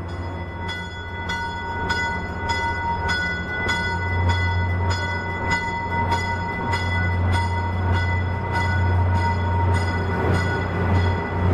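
Commuter train's warning bell ringing steadily, about three strokes a second, as the train runs into the station. Under it is the low, steady rumble of the train.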